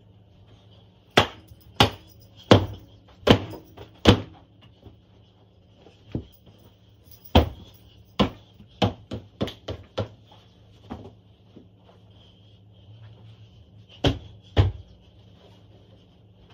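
Sharp thwacks and thumps of throw cushions being beaten and fluffed, about a dozen in irregular bursts. A steady low hum runs underneath.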